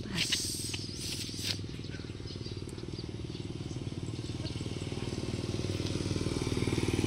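Small motorcycle engine running as the bike rides closer along the road, getting steadily louder. A few brief scratchy noises come in the first second and a half.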